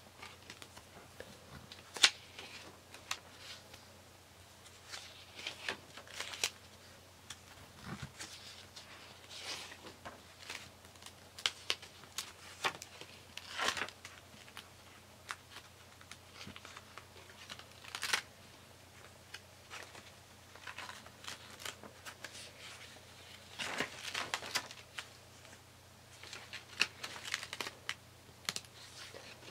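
Paper pages of a spiral-bound scrapbook journal being turned by hand: irregular rustles, flaps and snaps of paper, with the sharpest snap about two seconds in.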